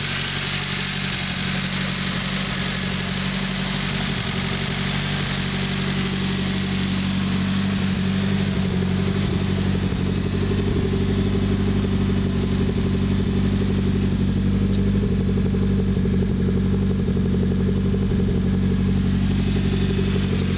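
Nissan SR20DET turbocharged 2.0-litre four-cylinder running steadily, getting slightly louder over the first several seconds, with a tick that the owner wonders is the lifters after a valve-cover hose came off during hard driving.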